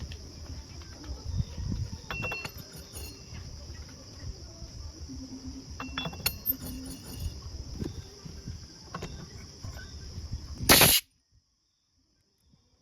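Steady high-pitched chirring of crickets or other insects, with scattered clicks and knocks of work being done. A short loud burst comes near the end and is followed by near silence.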